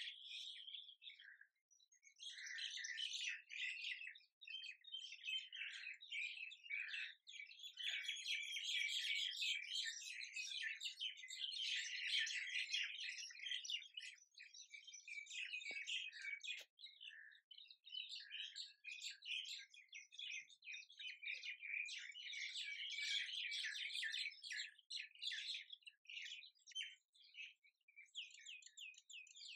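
Many small birds chirping and twittering in a dense, continuous chorus, with a brief pause about a second and a half in.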